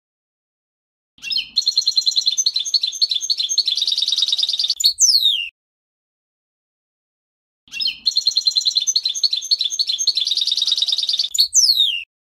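European goldfinch singing two song phrases. Each is a rapid, high twittering run of about four seconds that ends in a few steep downward-sliding notes. The first starts about a second in and the second about eight seconds in, with dead silence before, between and after.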